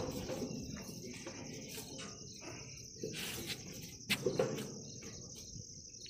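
A steady, high-pitched insect chorus from the surrounding forest, with a couple of brief knocks about three and four seconds in.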